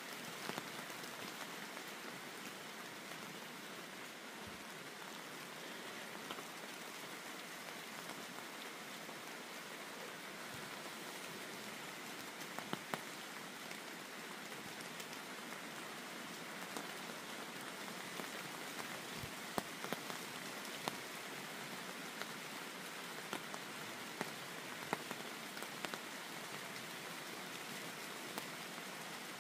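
Steady rain falling, with scattered louder individual drop hits standing out from the hiss.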